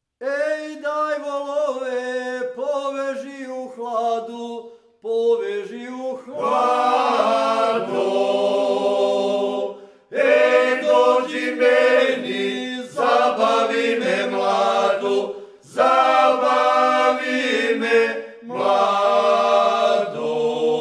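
A male folk group singing a cappella in Serbian traditional style, several voices together in long held phrases separated by short pauses.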